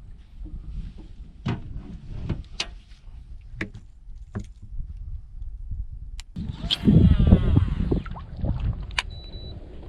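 Scattered light knocks and taps on a fishing kayak, then, about six seconds in, a louder stretch of water and hull noise with a brief gliding pitched sound.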